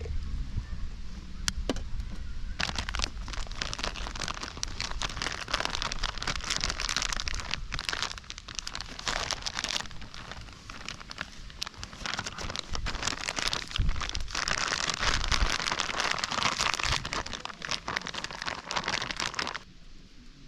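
Food sizzling in a pan over a campfire: a dense, crackling sizzle that starts about two and a half seconds in and cuts off suddenly near the end.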